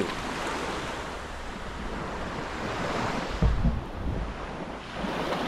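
Sea water washing and lapping, with wind noise on the microphone; a brief low thump about three and a half seconds in.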